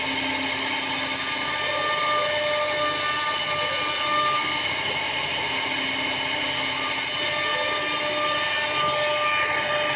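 CNC router running steadily while carving wood: a continuous high whine with several steady tones over a hiss.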